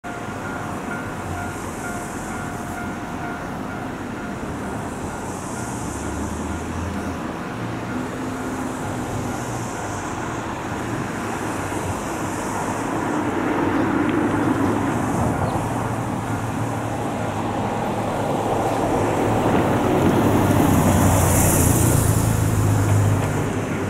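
Outdoor background noise of road traffic, swelling as vehicles pass around the middle and again near the end.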